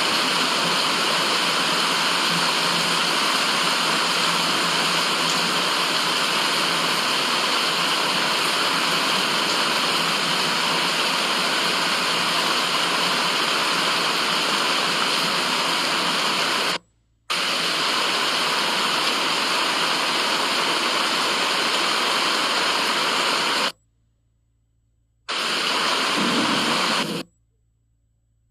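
Steady white-noise hiss, even across the range with no low bass. It cuts out suddenly to near silence three times: a short gap about two-thirds of the way through, a longer one soon after, and again near the end.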